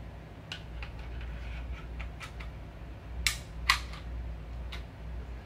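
Metal clicks of a Smith & Wesson SD40 VE pistol's slide being worked onto its frame during reassembly: several light clicks, then two sharp clacks about half a second apart a little after three seconds in, and one more near the end.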